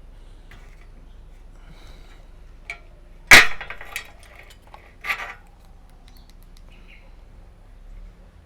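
Mechanical clicks from a Zeiss Ikon Ikoflex II twin-lens reflex camera being handled for a lens check: one loud sharp click a little over three seconds in, a second about two seconds later, and a few fainter ticks around them.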